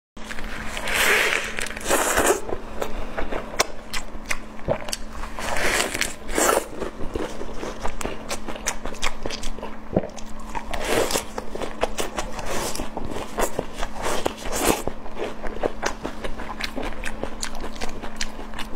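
Close-miked eating of lettuce wraps: crisp crunches as fresh lettuce leaves are bitten, among many small wet chewing clicks. A steady low hum lies underneath.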